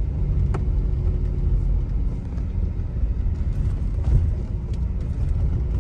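Car driving along a road, heard from inside the cabin: a steady low rumble of engine and road noise, with a couple of light clicks.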